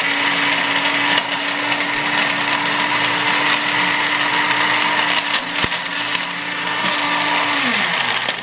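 Household blender motor running, grinding broken plastic keyboard pieces into small bits and powder in a loud racket, with an occasional sharp click. Near the end it is switched off, and the motor hum falls in pitch as it winds down.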